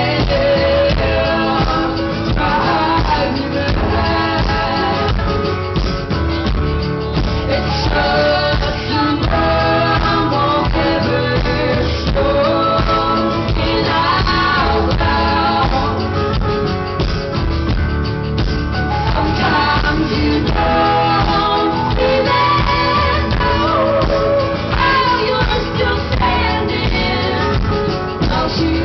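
Live band performance recorded from the audience: vocals sung over strummed guitar and drums, with a heavy, boomy low end that muddies the mix.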